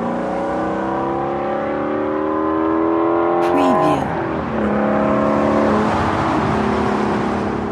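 Car engine accelerating, its pitch rising steadily for about four seconds, then dropping back and holding steady before starting to fade near the end.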